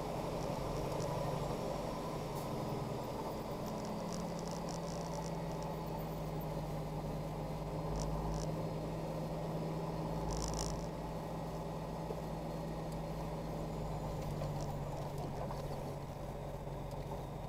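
Steady engine and road drone heard inside a truck's cab while driving on a freeway, with a low hum whose pitch drops slightly about three seconds in. A few faint ticks and rattles come through near the middle.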